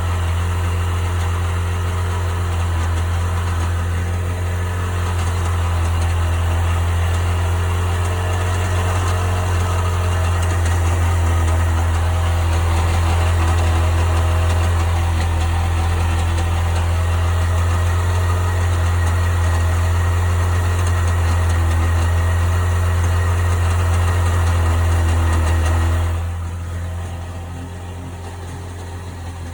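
1998 Sea-Doo GS 720's two-stroke twin-cylinder engine running steadily at idle, making a strange noise that the owner cannot identify. About 26 seconds in the sound drops noticeably in level and carries on quieter.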